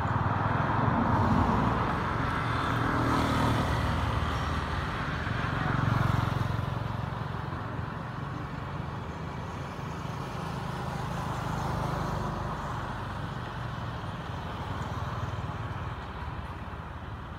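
Motor traffic passing nearby: engine and road noise that swells over the first few seconds and again about six seconds in, then settles to a steadier, lower level.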